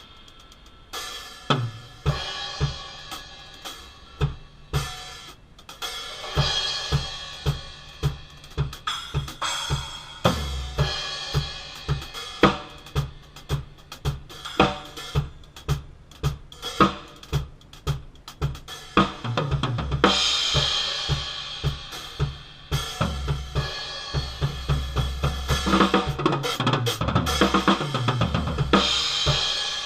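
Drum kit played with an Arborea Viking series cymbal set: kick, snare and hi-hat in a steady beat starting about a second in, with stretches of ringing crash cymbals over it.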